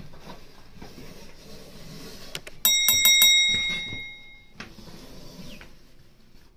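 A bicycle-style bell rung in a quick burst of about five strikes a little under three seconds in, its ring fading out over the next two seconds. It is the bell sound effect that goes with a subscribe-button animation. Faint rustling and low background noise fill the rest.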